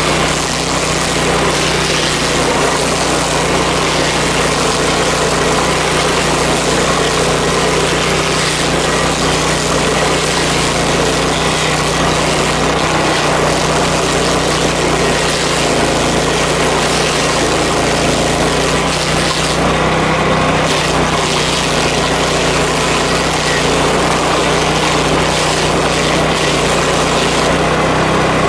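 Power King stump grinder running steadily under load, its cutter wheel chewing into an ash stump over the constant drone of the engine. The high grinding noise eases briefly twice, about twenty seconds in and near the end.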